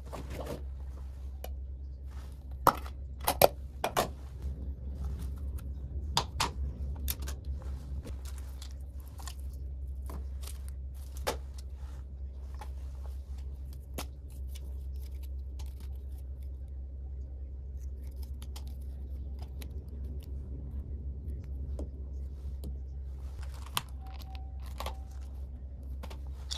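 Small toiletry items being set down and moved on a stone bathroom counter: scattered clicks and taps of plastic bottles and cases, loudest a few seconds in, over a steady low hum.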